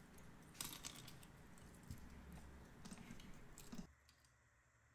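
Faint crackling and small clicks of cracked pecan shell pieces being picked through by hand, falling to near silence about four seconds in.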